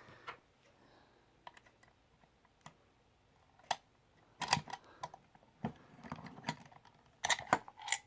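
Light, scattered clicks and small metallic clatter of a lock and lockpicking tools being handled and set down. Single clicks come at first, then quicker clusters about halfway through and again near the end.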